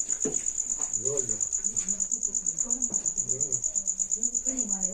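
Cricket chirping: a steady, rapid trill of pulses at one high pitch.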